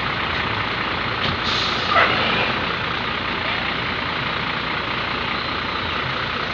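Tour bus traffic passing on the road: a steady run of engine and road noise, with a brief sharp hiss about a second and a half in and a short falling squeal right after it.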